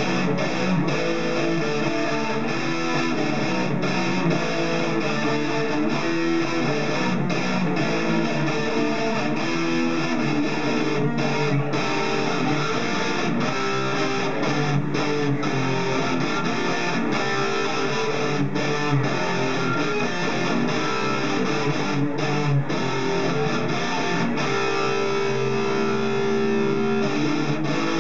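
Electric guitar played solo through an amplifier, a continuous run of sustained, changing notes.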